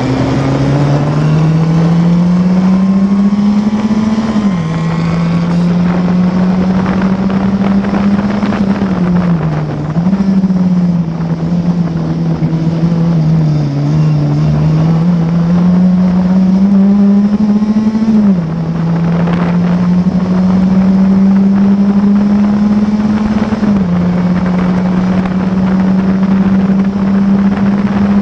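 Classic Formula Ford's 1600 cc Ford Kent four-cylinder engine under racing load, heard from the cockpit, its pitch climbing steadily through each gear and dropping suddenly at three upshifts, with two short easings of the throttle in between. Wind rushes over the microphone throughout.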